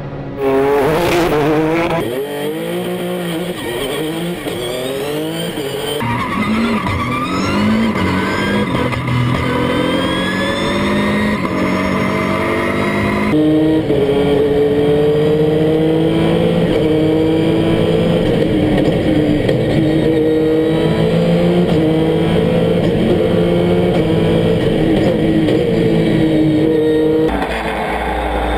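Dacia Duster No Limit race car's engine running hard under full throttle, its pitch climbing and dropping again and again as it shifts gears up the hill climb. The sound jumps abruptly a few times where the footage is cut.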